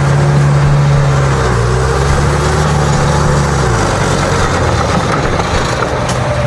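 Forestry skidder's engine running under load, with mechanical noise over it. The engine note dips briefly about two seconds in and settles lower about three and a half seconds in.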